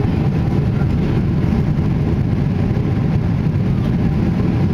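Boeing 777-300ER's GE90 jet engines running, a steady low rumble mixed with rushing air.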